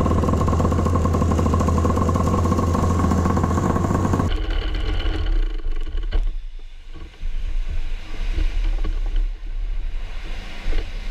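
Racing kart engine running steadily at a constant pitch, stopping abruptly about four seconds in; after that come quieter, uneven low rumbles and knocks.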